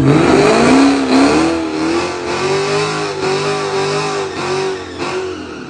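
Ford Mustang GT's 5.0 V8 launching at full throttle down a drag strip. The engine note climbs over the first few seconds, then the car pulls away and fades with distance.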